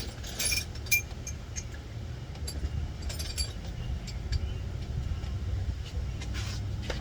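Scattered, irregular metallic clinks of a socket wrench and long extension being fitted and handled, over a steady low rumble.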